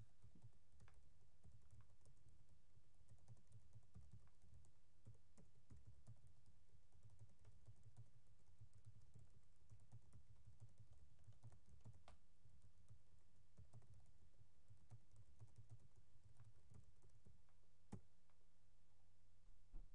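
Faint typing on a computer keyboard: a steady run of quick keystrokes that stops a couple of seconds before the end, followed by one sharper click.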